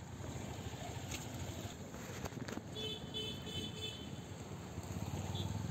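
Faint, steady low rumble of road traffic going by on a main road, with a few light clicks and a brief faint high-pitched tone about three seconds in.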